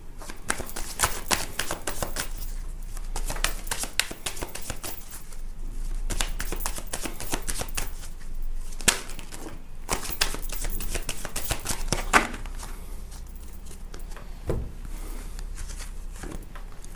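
A deck of tarot cards shuffled by hand: quick runs of card-on-card clicks and slaps, broken by short pauses.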